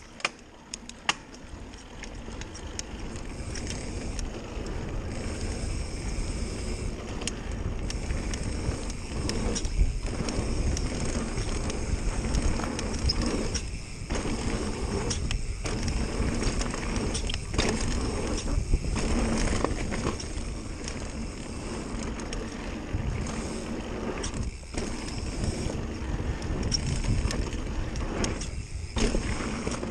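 Mountain bike riding fast down a dirt trail: knobby tyres rumbling over packed dirt with the frame and parts rattling and clicking. It grows louder over the first few seconds, then runs on with several brief dips in the noise.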